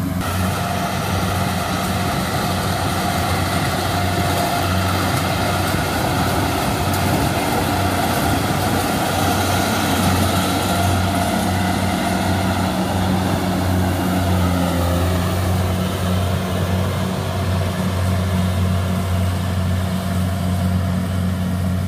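Kubota DC70 rice combine harvester running: a steady low engine drone under the churning, rattling noise of its working machinery, which is stronger over the first two-thirds and eases somewhat after about fifteen seconds.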